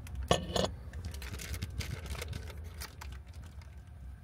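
A red lacquer-style bowl set down on a tray table with two sharp knocks, followed by crinkly rustling and small ticks as a white powder from a packet is tipped into the bowl.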